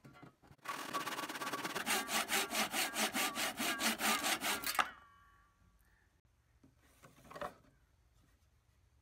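Handsaw cutting across a softwood block in quick, even rasping strokes, stopping about five seconds in. A brief scrape follows a couple of seconds later.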